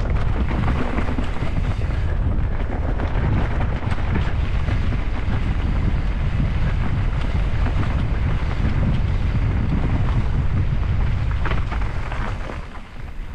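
Wind buffeting a helmet-mounted camera microphone, with tyres rumbling over a forest dirt trail on a fast downhill ride; it eases off near the end as the rider comes out onto a gravel track.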